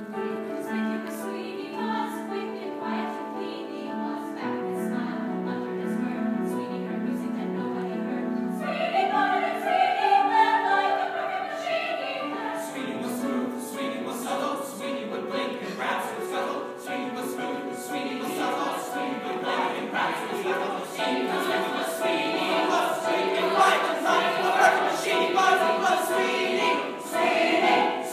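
Musical-theatre chorus of mixed voices singing together. The sound grows fuller and louder about eight and a half seconds in.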